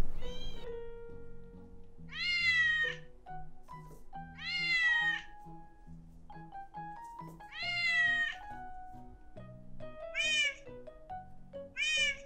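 A cat meowing six times, some calls long and some short, about every two to three seconds, over background music of plucked or piano-like notes.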